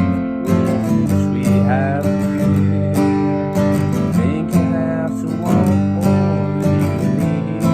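Acoustic guitar strummed in a steady rhythm, an instrumental passage of a slow folk song with no singing.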